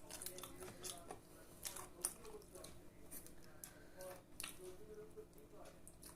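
Faint eating sounds: irregular wet mouth clicks and lip smacks from chewing, with one sharper click about two seconds in.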